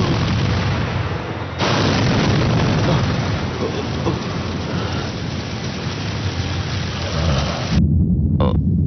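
Explosion: a sudden loud blast about a second and a half in, followed by a long, heavy rumbling roar with crackle. The crackle cuts off near the end, leaving a low rumble.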